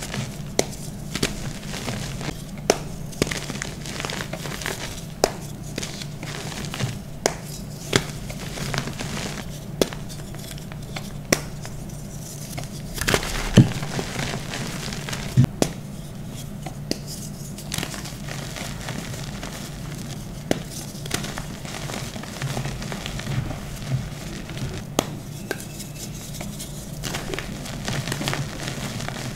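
Hands squeezing and crumbling red-dyed gym chalk, chunks and powder: dry crackles and soft crunches at irregular intervals, over a low steady hum.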